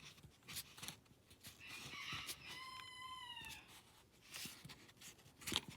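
A faint animal call: one pitched cry about a second long, dipping in pitch at the end, among scattered light clicks.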